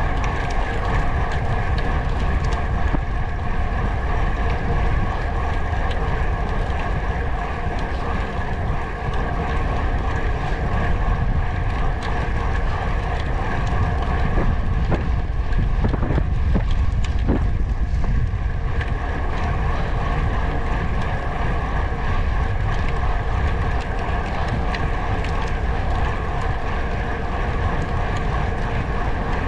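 Wind buffeting the microphone during a ride, over a steady hum that holds one pitch throughout, as from a vehicle cruising at constant speed.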